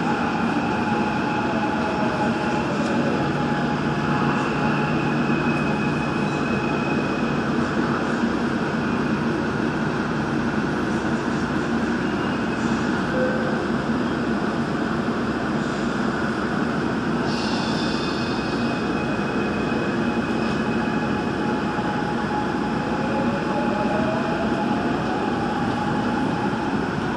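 Gwangju Metro Line 1 electric train, heard from inside the car: the motor whine falls in pitch as the train brakes into a station. A steady hum follows while it stands. Near the end the whine rises again as the train pulls away.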